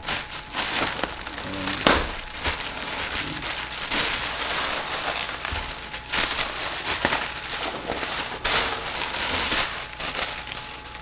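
Plastic air-cushion packing filler crinkling and rustling as it is handled and pulled out of a cardboard shipping box, with several louder crackles.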